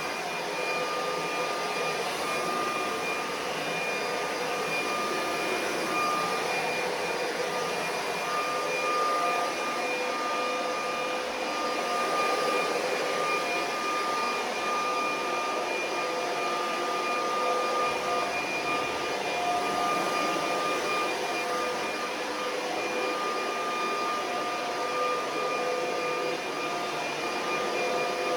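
Vacuum cleaner running steadily: a constant motor whine over an even hiss.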